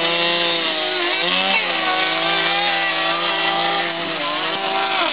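Gas chainsaw running at high revs while cutting down through a hot tub's shell. Its pitch sags about a second in as the cut loads it, recovers, and drops away near the end.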